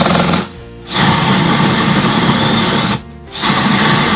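Power drill boring into wood through a FastCap flush-mount depth-stop collar, in a short burst and then two runs of about two seconds each, with brief pauses between. Each run ends as the collar reaches the surface and stops the bit at a set depth.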